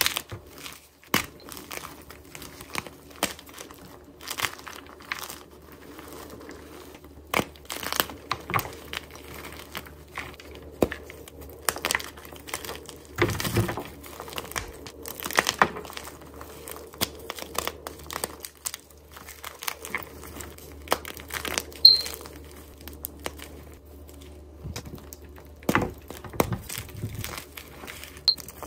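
Blocks of gym chalk coated in pink cornstarch paste and glitter being snapped and crushed by hand: irregular crisp cracks and crumbling, with a few louder snaps.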